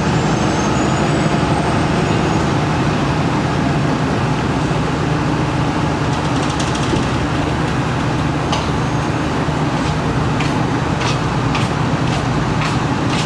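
Steady road traffic noise with a low engine hum from passing or idling vehicles.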